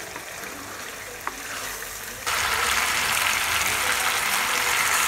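Beef pieces and onions frying in oil in a pan while being stirred with a wooden spatula: a steady sizzle that abruptly gets louder a little over two seconds in.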